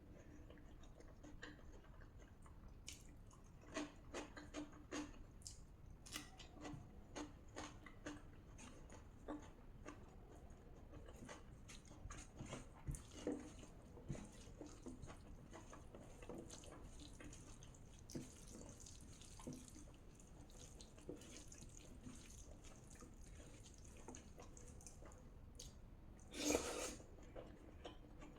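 Close-miked eating sounds: a person chewing a soft, wet mouthful of rajma and rice, with irregular small wet mouth clicks and smacks. One louder sound comes near the end.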